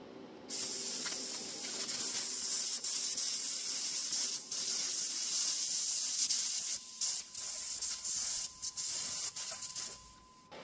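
Compressed-air assist gas hissing from the nozzle of a 700 W fiber laser cutting torch as it cuts through 3 mm steel plate. The hiss starts about half a second in, drops out briefly a few times, and stops near the end.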